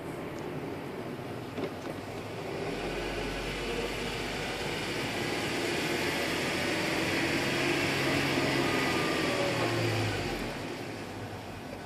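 Stock 1991 Acura NSX's mid-mounted 3.0-litre V6 with its factory exhaust, heard from inside the cabin with road noise. The engine pulls harder and grows louder for several seconds, then eases off near the end.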